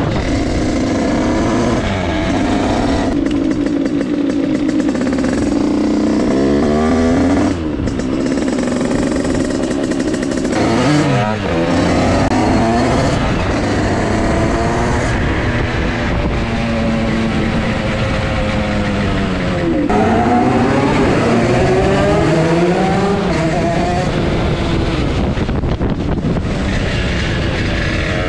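Tuned two-stroke engine of a Derbi Senda with a Stage6 88cc cylinder kit, ridden hard, its pitch rising and falling again and again as the throttle opens and closes, over low wind rumble. Another motorbike runs close ahead.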